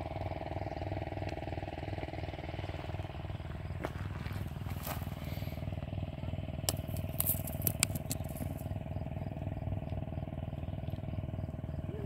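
A steady, evenly pulsing mechanical hum like a running engine, with a few sharp clicks of pebbles knocking together a little past the middle.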